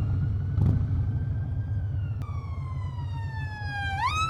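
Harley-Davidson Breakout's V-twin engine rumbling at low speed, under a wailing tone that holds steady, slides slowly down from about halfway, then sweeps quickly back up near the end.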